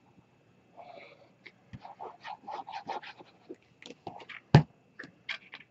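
Squeeze bottle of liquid craft glue sputtering and squelching as air and glue are forced out of its nozzle, a quick irregular run of short wet bursts. A single sharp knock on the table about four and a half seconds in.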